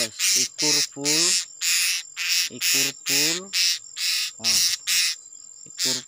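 Insects, likely cicadas, calling in rapid rhythmic pulses of about two to three a second over a steady high whine. A few short, low, rising vocal sounds come in between the pulses.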